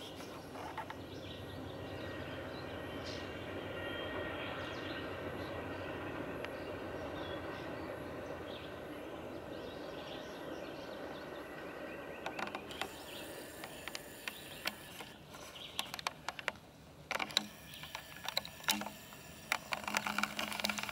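Amtrak Capitol Limited's bi-level Superliner passenger cars rolling over a steel girder railroad bridge: a steady rumble of wheels on rail that swells, then fades out about halfway through. Scattered clicks and knocks follow near the end.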